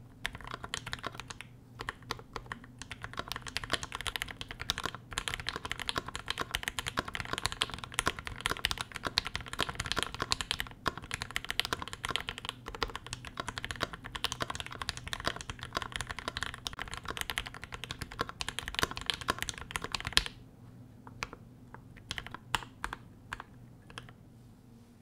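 Fast, continuous typing on a KBD67 MKII keyboard with a brass plate and ePBT keycaps, its lubed C3 linear switches (Tangerines, then Banana Split) clacking key after key. About 20 seconds in the steady typing stops, and a few scattered keystrokes follow.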